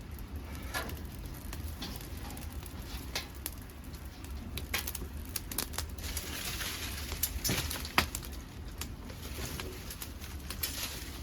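Dead podocarpus wood burning hot in a homemade pail-can secondary-combustion wood-gas stove: a steady low rush of flame with frequent, irregular sharp crackles and pops. The loudest pop comes about eight seconds in.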